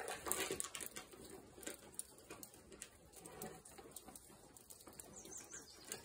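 Faint rustling and crinkling as a black bear noses through scattered garbage and cardboard boxes, a little louder in the first half second.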